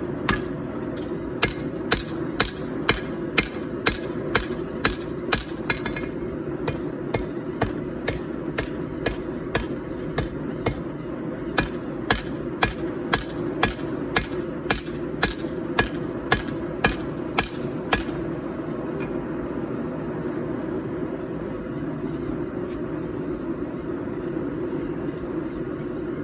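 Hand hammer forging a steel knife blank on an anvil: a steady run of sharp blows, about two to three a second, with a brief pause about ten seconds in. The hammering stops about 18 seconds in, leaving a steady low rushing noise.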